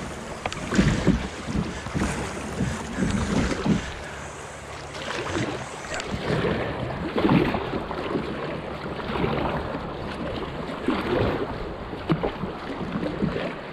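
Water rushing and splashing as a sit-on-top kayak is paddled through swift, choppy river current, with irregular louder surges from paddle strokes and waves against the hull. Wind buffets the camera microphone with a low rumble.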